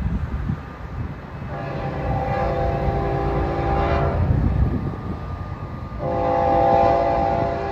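Florida East Coast Railway locomotive horn blowing two long blasts, several notes sounding together: the first starts about a second and a half in and lasts nearly three seconds, the second starts about six seconds in and is still sounding at the end.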